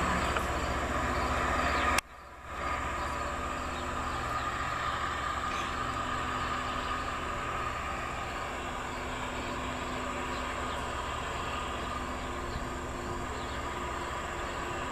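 LORAM rail grinding train passing at work, its grinding stones on the rails making a steady grinding noise over a low hum. The sound dips sharply for a moment about two seconds in, then holds even.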